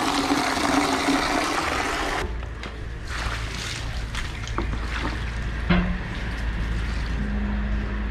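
Water running from a tap into a plastic bucket, cut off suddenly about two seconds in. Afterwards a low rumble with a few light knocks and clatters as the bucket is handled.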